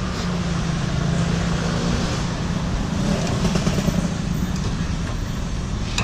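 Road traffic running past: a steady wash of vehicle noise with a low engine hum that shifts slightly in pitch about halfway through as vehicles go by.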